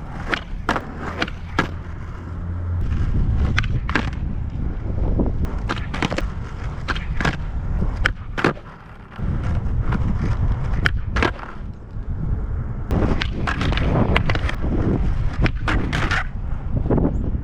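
Skateboard rolling on pavement with frequent sharp pops and clacks of the tail and deck as flat ground flip tricks are tried and landed, over a heavy low rumble of wheels and wind.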